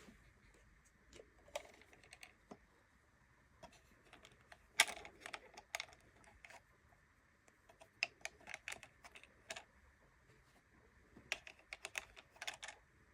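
Light plastic clicks and taps in scattered clusters: tiny Mini Brands miniatures being handled and set into a toy fridge.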